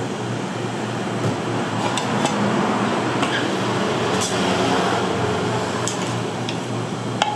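A long metal ladle working in a large steaming soup pot, with a few sharp clinks of metal and porcelain plates, over a steady rushing noise and low hum.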